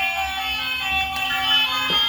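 Music: a tune of steady held notes, the notes changing every half second or so.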